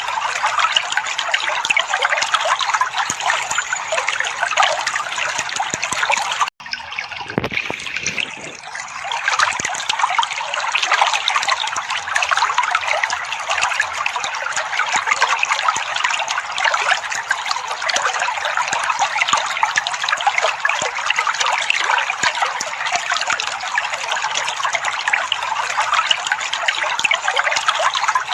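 Water trickling and splashing steadily, with a brief break about six and a half seconds in, after which it comes back quieter for a couple of seconds.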